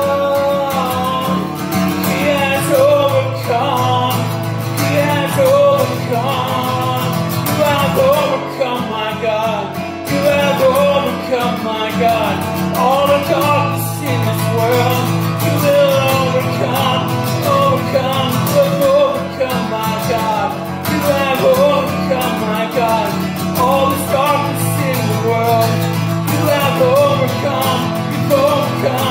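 Strummed acoustic guitar accompanying a man's singing voice in a slow worship song.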